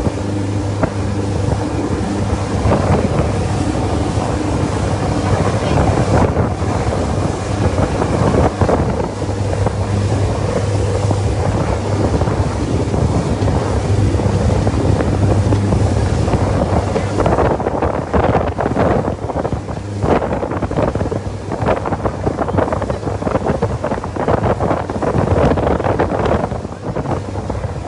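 A boat's engine running with a steady low hum, with wind buffeting the microphone and water rushing past.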